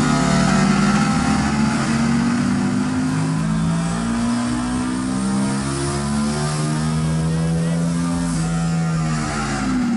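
Turbocharged Suzuki SV650's 90-degree V-twin engine running under throttle on a chassis dyno, its note holding fairly steady and then rising near the end.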